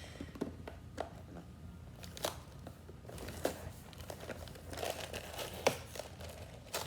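A LEGO set's cardboard box and its packaging being opened by hand: crinkling and tearing with scattered sharp clicks, busier after about three seconds.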